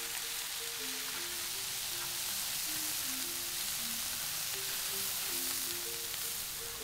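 Bean sprouts, shredded carrot and greens sizzling in a large wok as they are stirred and tossed with a wooden spatula, a steady frying hiss. Soft background music plays a simple melody of short notes over it.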